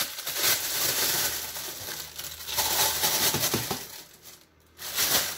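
Plastic bags being handled, shaken out and opened, crinkling and rustling in irregular bursts with a brief lull about four seconds in.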